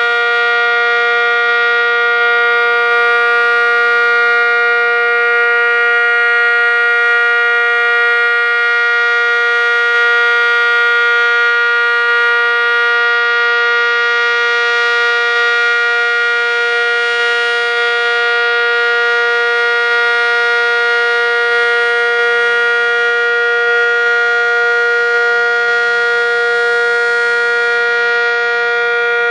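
ACA Cyclone dual-tone outdoor warning siren, running with its top lid missing, sounding a loud, steady two-note chord at full speed.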